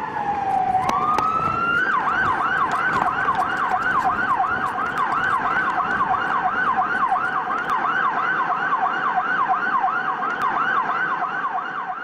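An emergency-vehicle siren. It sounds a slow wail that falls and rises again, then switches about two seconds in to a fast yelp, swinging up and down about three times a second.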